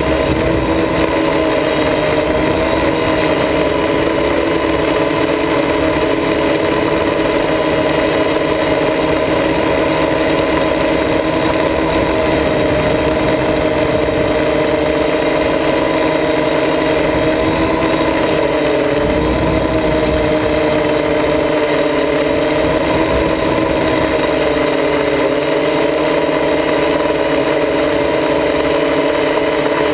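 Quadcopter's electric motors and propellers whining steadily, heard from the camera mounted on the craft, several close tones that dip and rise a little in pitch about two-thirds of the way through.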